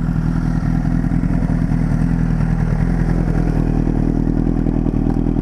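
Honda CBR1000RR sports bike's inline-four engine running at a steady, even pitch while the bike is ridden along a dirt track.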